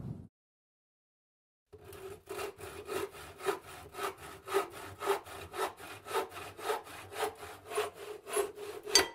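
Hand saw cutting with quick, regular back-and-forth strokes, about two a second, starting after a second and a half of silence. A sharp click comes at the very end.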